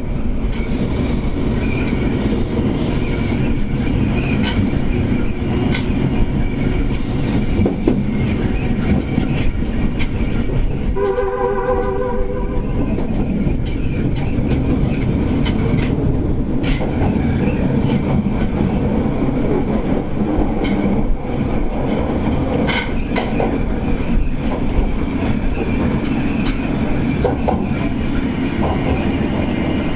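Kita-Osaka Kyuko 9000 series subway train running through a tunnel, heard from inside the front car behind the driver's cab: a steady rumble of wheels and running gear under loud air-conditioning noise, with scattered clicks over the rail joints. About eleven seconds in, the train's horn sounds once for about a second and a half.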